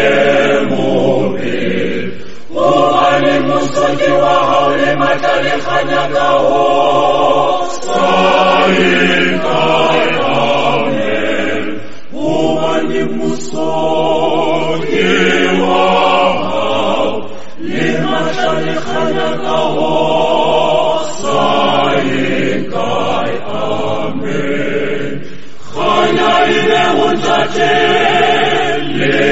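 A group of voices singing a hymn unaccompanied, in sung phrases of a few seconds each with short breaks between them.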